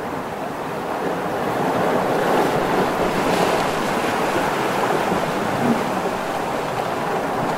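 Ocean surf: a steady rushing wash of breaking waves, swelling a little about two seconds in.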